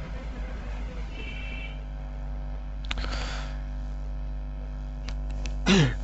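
Screwdriver and hand work on a washing machine motor's metal housing: a short scrape and a few sharp metal clicks over a steady low hum. Near the end comes the loudest sound, a short squeal falling quickly in pitch.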